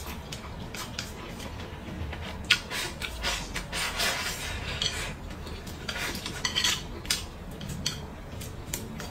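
Wooden chopsticks clicking and scraping against a bowl as rice and braised pork are eaten from it, with a longer stretch of scraping about three seconds in as rice is shovelled from the bowl's rim into the mouth.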